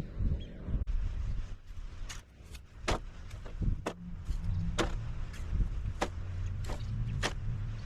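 Mini excavator's diesel engine running with a steady low rumble, with a run of sharp clicks or knocks, irregular and about one or two a second, from about two seconds in.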